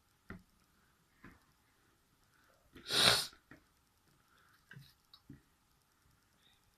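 A single sneeze about three seconds in, brought on by tickling the inside of the nose with a tissue. A few short, faint sounds come before and after it.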